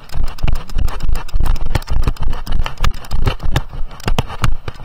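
Ridden horse moving along a dirt path, with rapid hoof knocks and jolting thumps close to the microphone of a camera carried on the horse or rider. The sound starts and stops abruptly.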